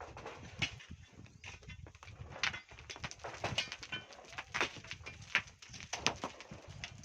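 Hand tools knocking and scraping in volcanic sand and stones: a run of irregular sharp knocks with scraping between them.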